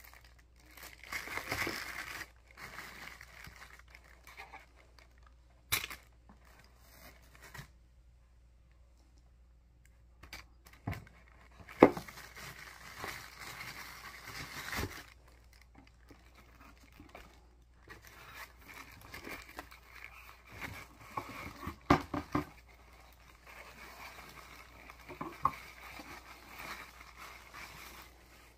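Plastic packaging crinkling and rustling in irregular bursts as items are unwrapped and handled, with a few sharp clicks and knocks. The loudest click comes about twelve seconds in.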